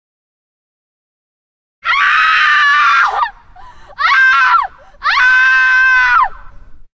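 Screaming ringtone: three loud, high screams, the first starting about two seconds in. Each holds its pitch and then drops off, and the middle one is shorter.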